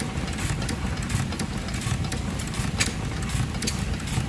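Horizontal stationary gas engine running steadily, a low chugging beat with sharp clicks about three times a second.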